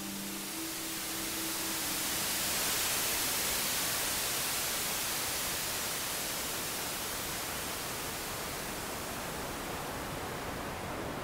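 A steady rushing hiss that swells a couple of seconds in and then eases slightly. The last held tones of the preceding music fade out in the first second.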